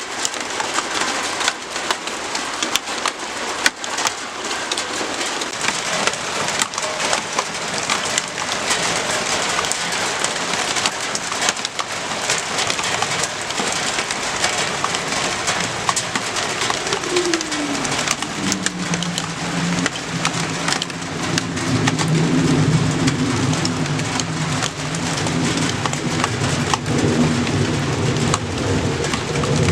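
Steady rain falling, with the patter of many individual drops. About two-thirds of the way through, a low droning tone slides down in pitch and then holds steady under the rain.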